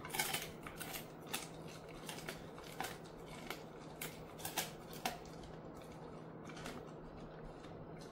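Jindo-mix dog crunching a chicken-foot treat: a rapid series of sharp cracking crunches as the bones and skin break between his teeth, which stop about five seconds in.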